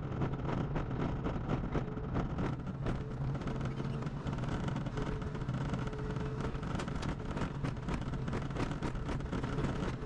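SANY hydraulic excavator's diesel engine running steadily under light load while the bucket works the loose soil of a dirt road, with frequent faint clicks over the engine hum.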